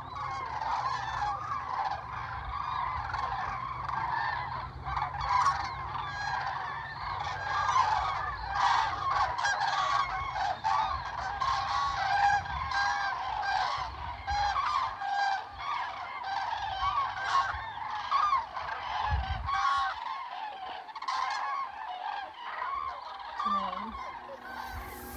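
A large flock of common cranes calling, many loud trumpeting calls overlapping without a break.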